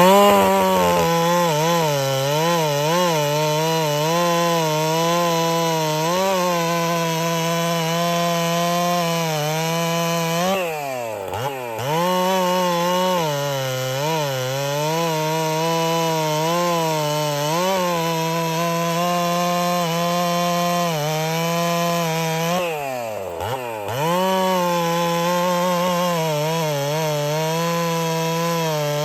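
Ported Husqvarna 61 two-stroke chainsaw cutting wood under load, its engine pitch wavering as the chain bites. Twice, about 11 and 24 seconds in, the revs drop sharply and climb back.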